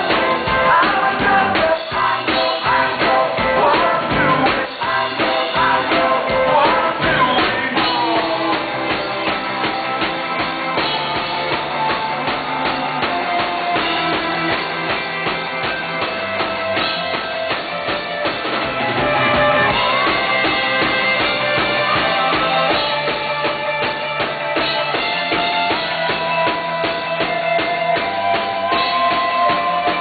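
Rock band playing live: a man singing over electric guitar and a drum kit.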